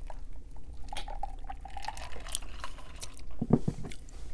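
Close-miked gulping and swallowing of a drink from a glass, with a few heavier swallows about three and a half seconds in.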